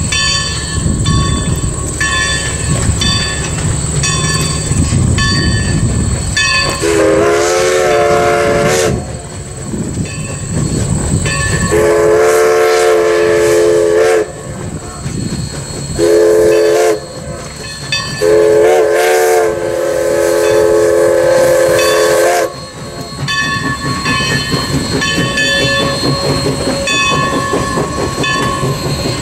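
Alco steam locomotive No. 11's chime whistle blowing the grade-crossing signal, two long blasts, a short one and a final long one, the signal for approaching a road crossing. Its bell rings steadily before and after the whistle, over the rumble of the locomotive and its coaches.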